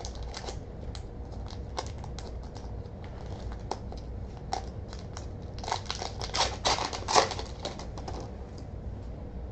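Foil wrapper of a 1998 Topps Gold Label football card pack crinkling and being torn open by hand, with the cards sliding out: scattered crackles and clicks, denser and louder around six to seven seconds in.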